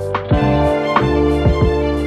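Background music: held chords over a steady drum beat.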